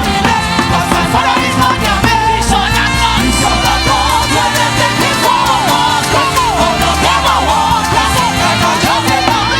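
Upbeat Afro gospel praise music: voices singing wavering lines over a steady bass and a driving percussion beat.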